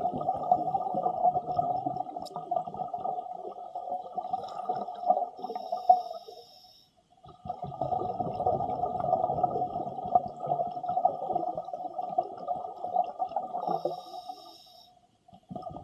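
Scuba diver breathing underwater through a regulator: two long breath cycles of rumbling, bubbling regulator noise, each ending in a short, higher hiss, with a brief pause after the first about six seconds in and again near the end.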